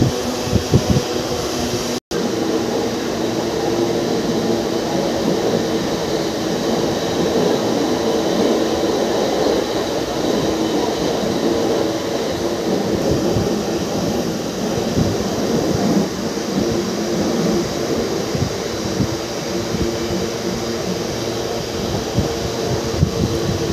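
Mumbai suburban electric local train running at speed, heard from inside the coach by its open doorway: a steady rumble and rattle of wheels on track over a steady hum. The sound drops out for a split second about two seconds in.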